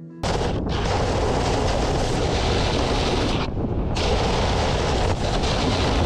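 Snowboard sliding fast over packed snow, with wind buffeting a camera mounted on the board: a loud, even rushing and scraping hiss that cuts in sharply and drops away briefly twice.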